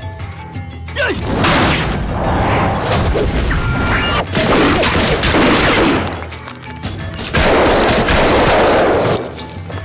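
Film gunfight sound effects: repeated bursts of automatic rifle fire with crashing impacts over background music. The longest, loudest burst comes near the end.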